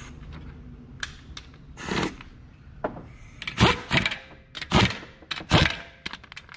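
Cordless power tool run in about five short bursts, tightening the 10 mm nuts that hold the ignition coils on the engine's valve cover.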